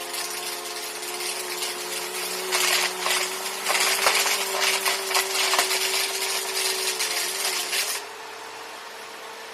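Upright vacuum cleaner running with a steady motor hum and rushing air, crackling with debris being sucked up; it gets louder about two and a half seconds in and quietens suddenly about eight seconds in.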